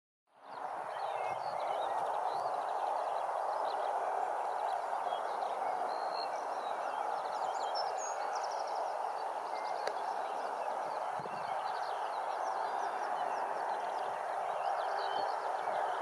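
Birds singing and chirping throughout, many short calls and trills over a steady rushing background noise.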